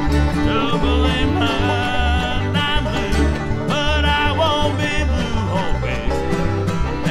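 Live bluegrass band playing an instrumental break: banjo rolls to the fore over strummed guitar, with the bass on a steady beat about twice a second and fiddle and mandolin in the mix.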